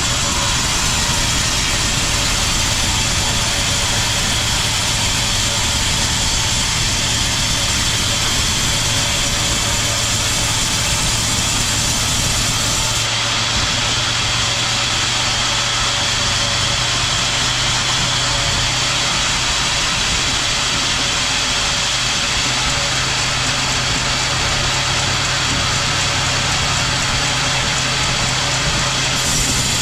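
Sawmill machinery running steadily: a constant engine drone with a steady hum and a hiss over it.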